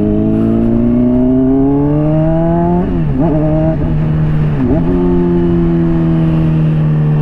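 Honda CBR600RR inline-four engine through a slip-on exhaust, heard from the rider's helmet. The pitch climbs for about three seconds as the bike accelerates, dips briefly twice, then holds steady.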